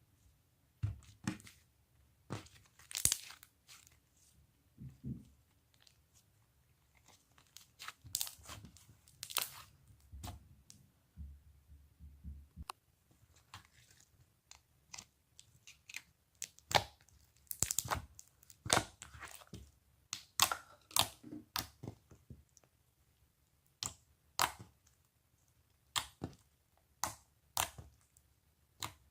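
Slime being squished and stretched by hand, giving off irregular sharp pops, clicks and crackles, some in quick clusters.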